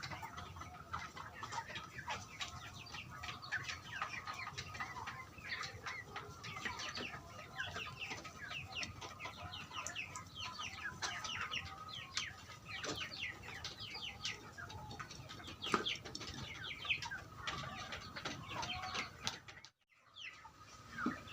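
A flock of laying-hen chickens calling and clucking, many short falling calls overlapping without a break except for a brief gap near the end.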